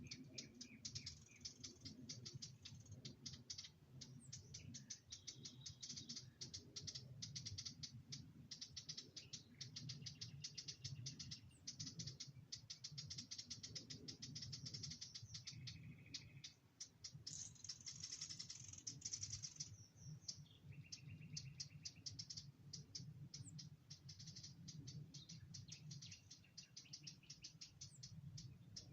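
Wild birds chirping and calling: a faint, dense chorus of rapid high chirps with a few short whistled notes, over a low steady hum.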